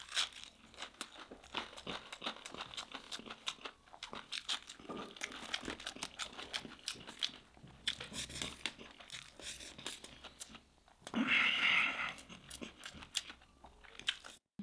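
Close-up crunching and chewing of crispy nut-coated fried fish, with flesh and crust being torn apart, as a dense run of irregular crackles. A louder crackling burst comes about eleven seconds in.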